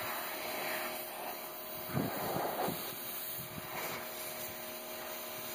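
Pressure washer running, its water jet spraying onto dirty clay roof tiles: a steady hiss over the washer's motor hum, briefly louder about two seconds in.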